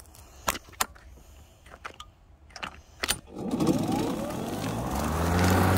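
A few sharp clicks, then about three and a half seconds in the EGO battery-powered mower's electric motor and blade spin up with a rising whine and settle into a steady, louder hum.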